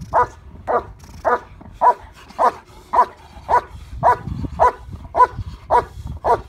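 A German Shepherd on a leash barks steadily at the decoy during protection (bitework) training. The barks are evenly spaced, about two a second.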